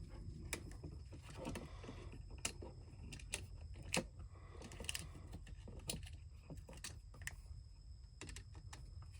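Scattered small clicks and light metallic taps from hand tools and wires being handled while an electrical outlet is rewired, over a steady low rumble.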